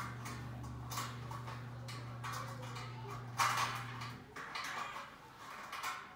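Irregular scrapes and rustles of computer table parts being handled during assembly, roughly once a second, the loudest about three and a half seconds in, over a steady low hum that stops about four seconds in.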